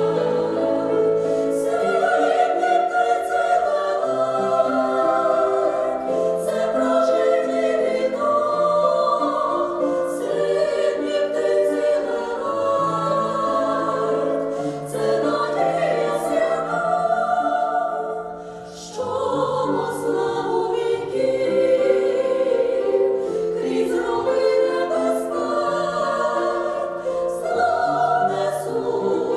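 Vocal ensemble singing a Ukrainian song in several voices, with a short break between phrases about two-thirds of the way through.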